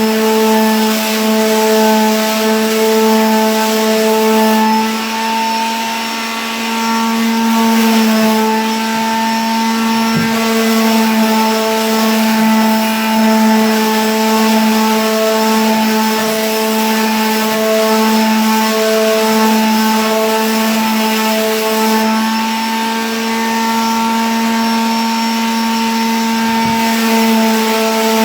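Electric sander running steadily on a canvas layered with primer: a constant motor hum with a hiss of abrasion as the surface is sanded smooth.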